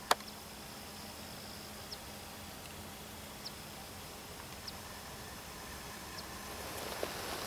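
Quiet, still outdoor ambience by a pond: a faint steady hiss with short, high chirps every second or so from a small creature, and a single sharp click at the very start.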